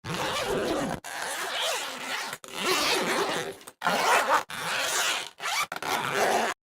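Zipper pulled back and forth, a run of about seven separate rasping strokes, each from half a second to a second and a half long, with short breaks between them.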